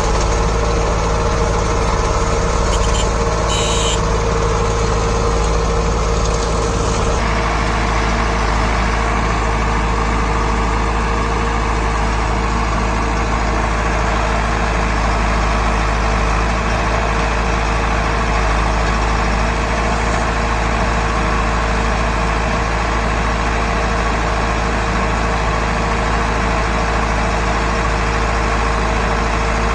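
Diesel engines of a JCB 3DX backhoe loader and a Swaraj 744 FE tractor idling steadily, with a slight change in tone about seven seconds in.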